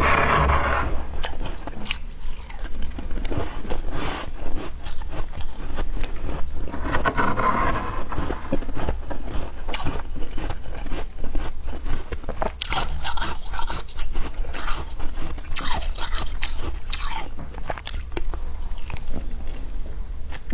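Freshly formed humidifier frost being scooped with a spoon and eaten: spoon scrapes through the frost and a dense run of crisp crunches as it is bitten and chewed, with a few louder scraping passes.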